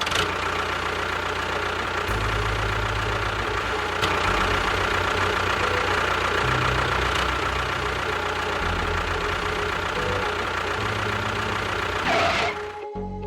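Engine running steadily at idle, its low rumble shifting in pitch and strength every few seconds.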